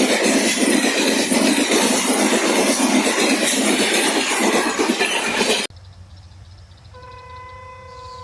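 A train passes close by, its wheels clattering over the rail joints with a dense rumble. The sound cuts off abruptly about two-thirds of the way through, and after a short quiet a much fainter steady, single-pitched tone begins and holds.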